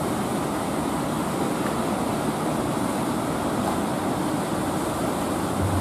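Steady rushing noise of surf breaking and washing around a wooden fishing boat in the shallows.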